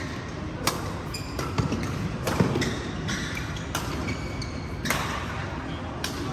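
Badminton rally: rackets hitting the shuttlecock with sharp cracks about every second, five or six strokes, with short squeaks of shoes on the court floor between them.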